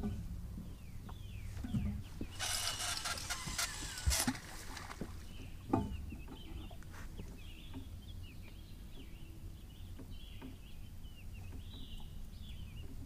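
Birds calling in short chirps, over and over, from about five seconds in. About two and a half seconds in there is a rasping noise lasting under two seconds, and a couple of sharp knocks follow a little later.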